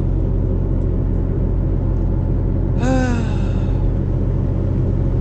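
Steady low rumble of a car's engine and road noise heard inside the cabin while driving. About three seconds in comes a short falling vocal sound from the driver.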